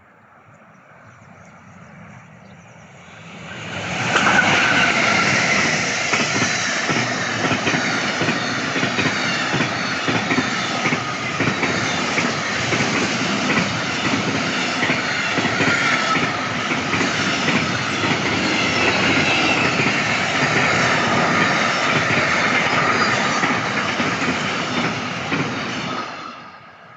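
A train passing on the line. It builds over the first few seconds, then gives a loud, steady rush of wheels on rail with repeated clacks for about twenty seconds, and falls away quickly near the end.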